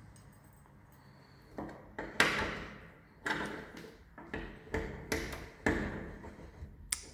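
Keys being tried in a locked door's lock, with the door rattled and knocked: a string of sharp clanks and thuds starting about a second and a half in. The lock does not give, and the door stays shut.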